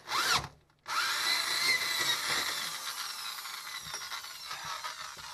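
Power drill enlarging a hole in the fibreglass water tank, a short burst and then about four seconds of steady cutting with its whine slowly dropping in pitch and fading near the end.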